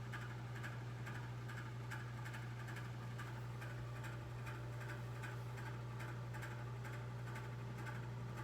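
Faint regular ticking, about two ticks a second, over a steady low hum.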